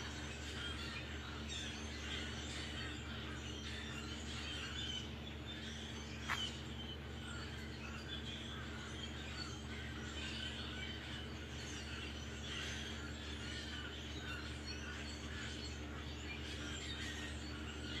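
A large flock of blackbirds calling from the treetops: many small chirps and chatters overlapping continuously, with one sharper, louder note about six seconds in, over a low steady hum.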